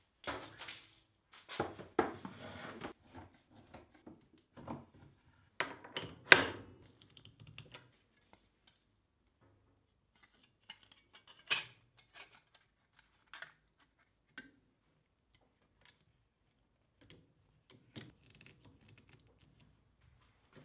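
Metal clanks, clicks and knocks of a tool holder being handled and set onto a metal lathe's quick-change toolpost, with the loudest clank about six seconds in and scattered lighter clicks after.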